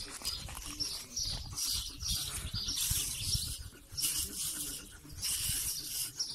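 Steel-toothed wooden grooming brush drawn repeatedly through a short-haired dog's coat, a scratchy swish with each stroke, about one stroke a second, over a low rumble.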